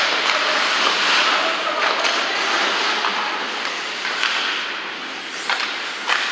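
Ice hockey play: skates scraping and hissing on the ice, with a few sharp clacks of sticks and puck about two, four and five and a half seconds in.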